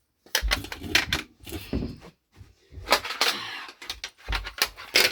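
Plastic toy pieces clattering as they are moved and set down: three bursts of quick clicks and knocks.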